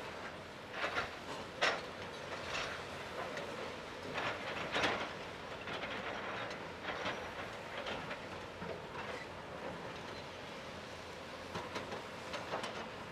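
Volvo excavator running steadily with its munching attachment at work, giving irregular short bursts of clanking and crunching, the loudest about a second and a half in and near five seconds.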